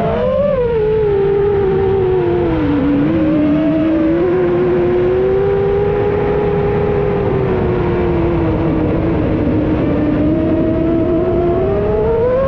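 Reddy 1.3 FPV quadcopter's motors and propellers whining in flight. The pitch drops over the first few seconds, holds low, and climbs again near the end as the throttle changes.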